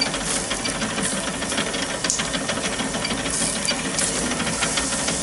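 Pork belly and peppers on a rotisserie over hot charcoal, sizzling and crackling with a steady hiss and many small ticks.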